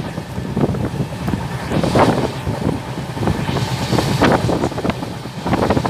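Running noise of a passenger train coach heard at an open window: a steady low rumble of wheels on the track, with wind gusting over the microphone in uneven surges.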